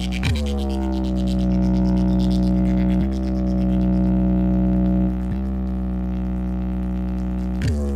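DJ box sound system playing a competition track: a steady, buzzy bass drone with a deep low end. A quick falling pitch sweep comes about a third of a second in and again near the end.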